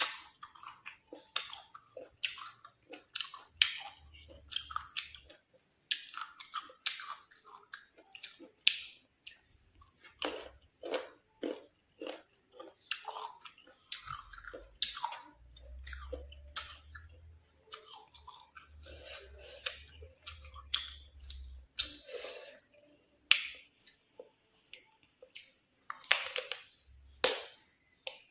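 Close-miked chewing of crisp, unripe green mango: irregular wet crunches and clicks, several a second, as the firm flesh is bitten and chewed.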